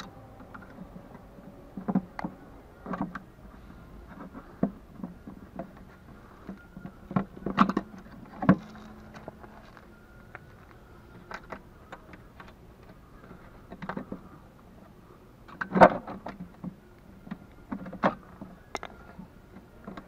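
Irregular clicks and knocks of metal retaining clips being pressed onto the rim of a plastic car headlight housing to clamp the new lens in place, with the housing handled and shifted between them; the sharpest knock comes about three-quarters of the way through.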